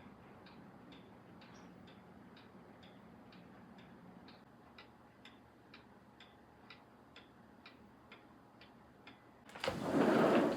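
A clock ticking steadily, about two ticks a second. Near the end, a loud rush of noise lasting about a second cuts over it.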